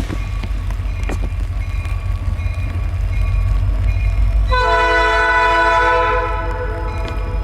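A train passing with a steady low rumble while a crossing bell dings repeatedly. About four and a half seconds in, the locomotive horn sounds one long blast of about two and a half seconds.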